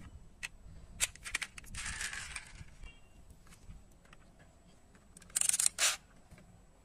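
Die-cast metal toy car models being handled: scattered small clicks and clinks in the first couple of seconds, then a short, louder rustling scrape about five and a half seconds in.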